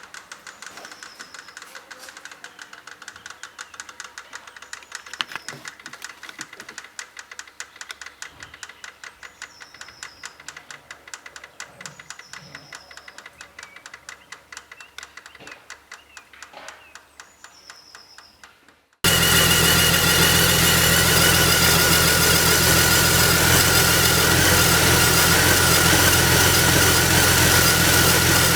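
Jeep Wrangler 4.0 straight-six with the engine stopped: a quiet, rapid ticking from the valvetrain that the owner can feel in the valve springs. It slows and fades. About 19 seconds in, it gives way abruptly to the engine running loud and steady, with a steady whine that the owner puts down to the alternator bearing.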